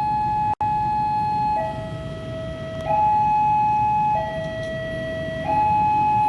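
Two-tone hi-lo siren, alternating between a higher and a lower note about every 1.3 seconds, with a split-second break in the sound about half a second in.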